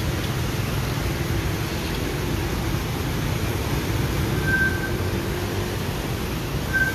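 Motorbikes and a small truck driving through floodwater on a street: a steady low rumble of engines and moving water, with two brief high-pitched beeps, one about halfway through and one near the end.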